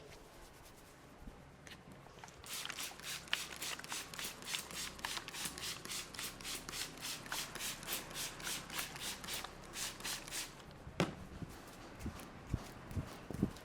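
Hands rubbing briskly over hair and scalp in a head massage, an even swishing of about three strokes a second that starts a couple of seconds in and stops near ten seconds. A few soft thumps follow near the end.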